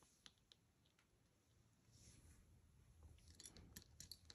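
Near silence, with a few faint clicks of metal brooches being set down and picked up on a tabletop, several of them close together near the end.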